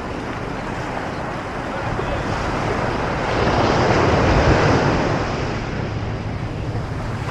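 Ocean surf on the beach: a wave breaks and washes up, swelling to its loudest about halfway through and then easing off, with wind buffeting the microphone.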